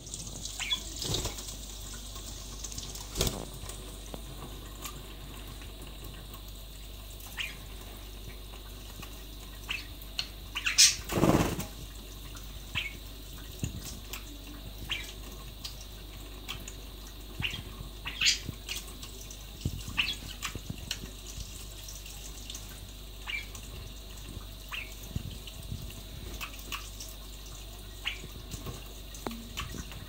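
Kitchen tap running a thin stream into a stainless steel sink, a steady wash of water, with budgerigars' short chirps scattered through it and a single louder noise about eleven seconds in.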